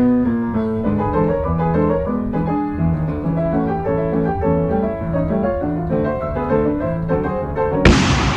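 Piano music, a run of quick notes. Near the end it is cut off by a sudden loud burst of noise that slowly fades.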